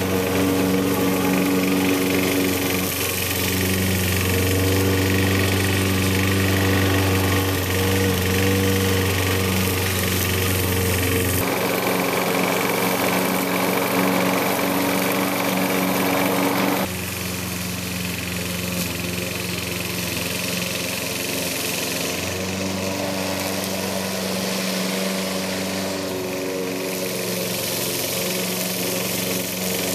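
Gasoline walk-behind rotary lawn mower, its small single-cylinder engine running steadily while cutting grass. A little past halfway it becomes slightly quieter and more distant.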